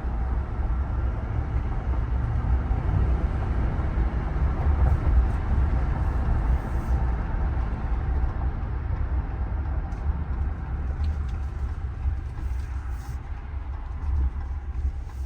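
Cabin noise of a 2023 Ram 1500 Limited pickup with a 5.7L HEMI V8, on the move: a steady low rumble of engine and road noise with wind hiss over it. It eases off a little in the second half.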